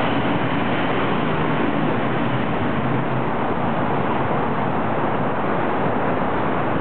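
Steady roar of road traffic, mixed with wind rushing over the microphone of a camera carried on a moving bicycle.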